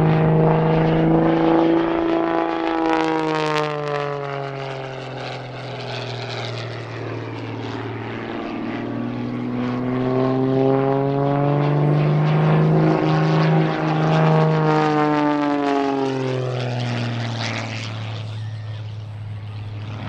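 MXS aerobatic monoplane's propeller engine droning through its manoeuvres. The pitch slides down, climbs again and falls once more as the plane passes and changes power. It is loudest near the start and again about two-thirds of the way through.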